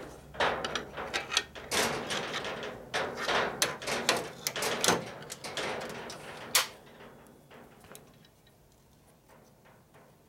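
Wind gusting against the workshop, rattling and knocking at the building, with metal clinks from a motorcycle footboard and its bolts being fitted. The rattling dies down about two-thirds of the way through.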